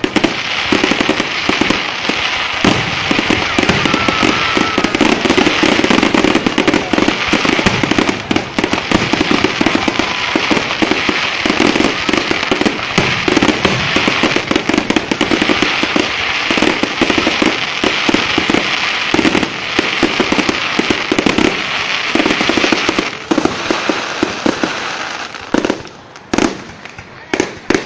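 Aerial fireworks going off in a dense, continuous barrage of bangs and crackling, easing near the end to a few separate loud bangs.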